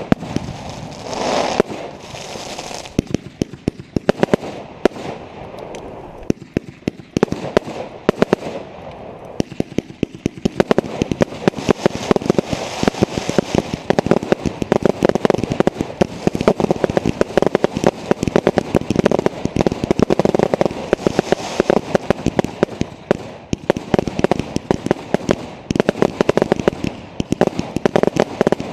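Fireworks going off: a rapid string of sharp bangs and crackles, sparser at first, then from about ten seconds in a dense, almost continuous barrage of reports.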